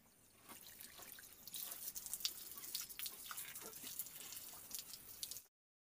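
Water from a garden hose splashing and trickling onto stones and wooden boards, starting about half a second in and cutting off suddenly near the end.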